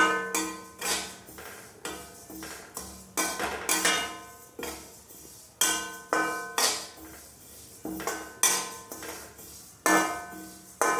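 A metal slotted spoon scraping and knocking against a steel kadhai while sesame seeds are stirred and dry-roasted. The strokes come irregularly, about two a second, and each leaves the pan ringing briefly.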